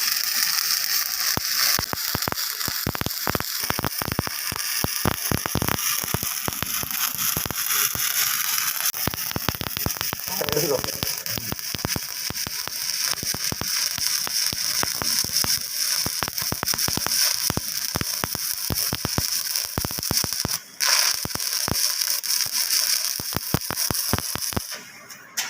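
Stick (SMAW) welding arc crackling and sizzling steadily as a 3.15 mm electrode lays a fill pass on a horizontal 2G butt joint. The arc breaks for a moment about 20 seconds in, then stops shortly before the end.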